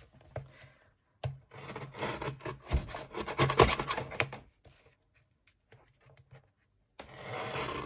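Paper and card being slid and rubbed across a plastic paper trimmer, a scratchy rustle with a few clicks for about three seconds, a pause, then again near the end.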